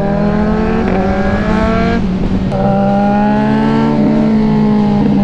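Kawasaki Z900's inline-four through an SC Project full-system exhaust, accelerating hard through three quick quickshifter upshifts in the first few seconds. Each shift is marked by a sharp exhaust pop or backfire and a drop in engine pitch. After the last shift the engine pulls on, rising steadily in pitch.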